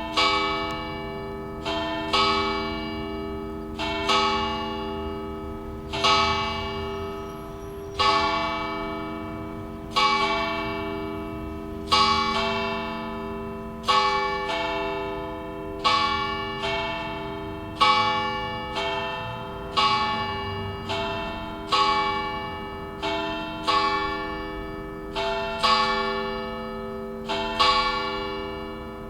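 The two bigger of four McShane-cast church bells ringing in a belfry, about one stroke a second, each stroke ringing on and fading under the next over a steady hum. The last stroke comes near the end and dies away.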